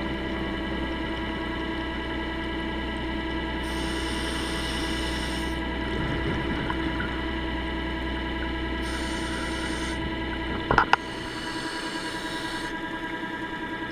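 Steady whine and hum of diver propulsion vehicle (underwater scooter) motors heard underwater. Hissing bursts of exhaled regulator bubbles come three times, and a sharp knock comes near the end, after which the low hum drops away.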